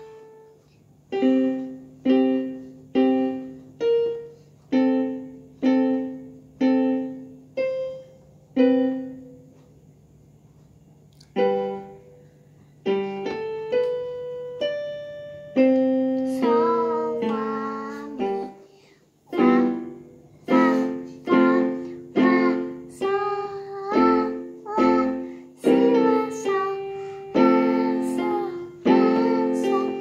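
A child playing a portable electronic keyboard in a piano voice: chords struck about one and a half times a second, a pause of about two seconds, then a melody over chords. A faint steady low hum runs underneath.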